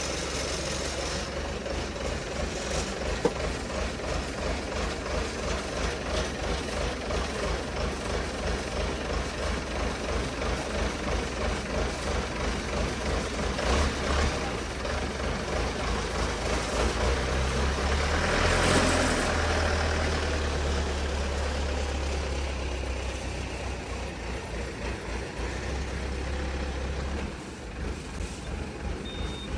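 Diesel engine of a self-loading concrete mixer running with a steady throb, swelling louder for a few seconds past the middle, then settling back. Near the end the machine drives off.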